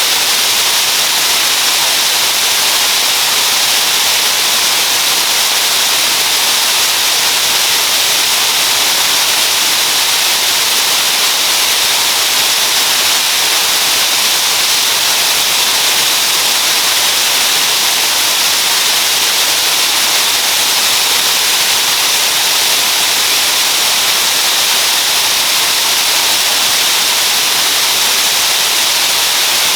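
Waterfall's steady rush of falling water, an even, unbroken hiss.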